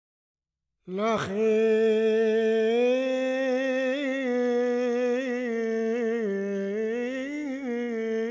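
A single wordless voice, humming or singing one long, slowly wavering note, coming in suddenly about a second in with a quick swoop in pitch.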